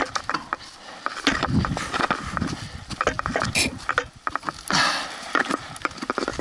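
Mountain bike rolling fast down a gravel track: tyres crunching over stones, with irregular clicks and rattles from the bike and its camera mount, and a rush of wind noise about five seconds in.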